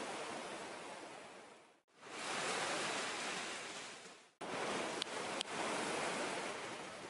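Rushing river water over rocks, a steady hiss-like noise that fades out and back in just before two seconds, then breaks off and resumes at a cut a little after four seconds. Two faint clicks come about five seconds in.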